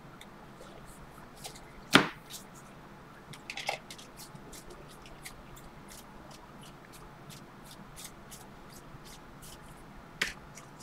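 Trading cards being flipped one by one off a stack in the hands: a steady run of light ticks, about three a second, as each card slides off. A sharp knock about two seconds in is the loudest sound, with smaller knocks about four seconds in and near the end.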